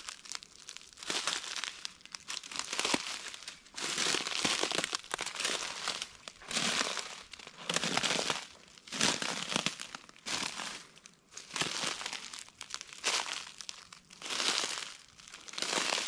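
Footsteps crunching through dry fallen oak leaves on a forest floor, one crackling step roughly every second at an even walking pace.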